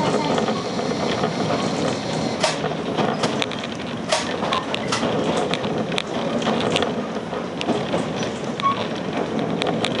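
Electric train running, heard from inside the cab: a steady rumble of wheels on rail with irregular sharp clicks and clacks as the wheels pass over rail joints and points.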